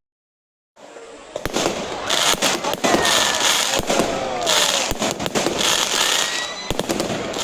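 Fireworks display: after a brief dead gap, a dense run of sharp bangs and crackling begins about a second in and keeps going in loud waves.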